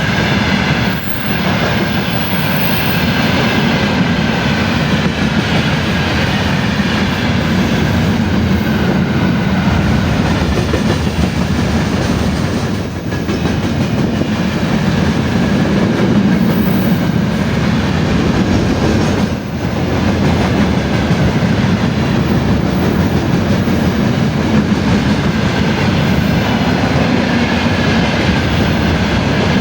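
A train passing close by on the rails: a steady, loud rumble of wheels and cars with three brief dips.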